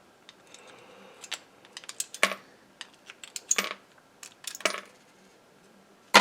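Small metal parts from a dismantled contactor clinking and clicking as they are handled and dropped into a container: a scatter of sharp separate clicks, the loudest near the end.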